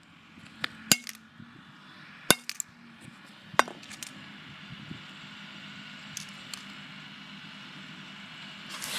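Sharp, separate blows striking the broken-off half of a flip phone, with a clink at each hit: four loud ones in the first four seconds, a few faint taps after, and another hit near the end.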